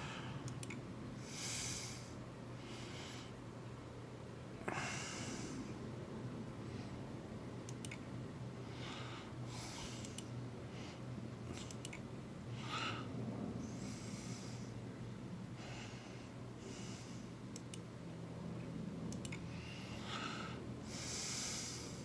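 A person breathing through the nose close to the microphone, with slow breaths every second or two over a steady low hum. There is a single soft knock about five seconds in.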